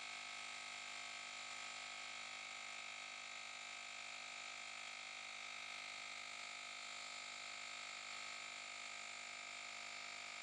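Handheld cordless tire inflator's compressor running steadily while inflating a car tire, heard as a faint, even hum.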